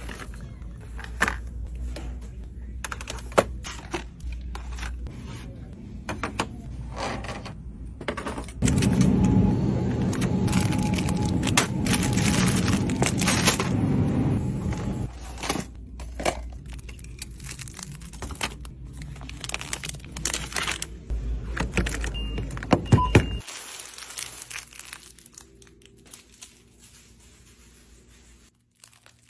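Products being handled and moved: many small clicks, taps and scrapes of cardboard boxes and plastic bottles, with a metallic jangle like stacked bracelets. Over a stretch of about six seconds in the middle the handling noise is louder and denser.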